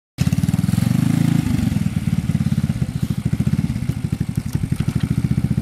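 Engine of a Leshy 2x2M two-wheel-drive motorcycle running at low revs with a fast, even putter. It cuts in abruptly just after the start.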